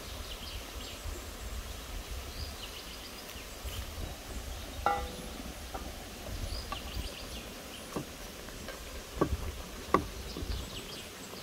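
Earthenware pot lid set down with a ringing ceramic clink about halfway through, then a wooden spatula knocking against the clay pot a few times near the end as stuffed hornbeam-leaf rolls are lifted out.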